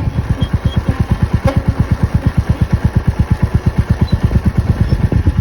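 Royal Enfield Meteor 350's single-cylinder engine idling, a steady exhaust beat of about eight to nine pulses a second.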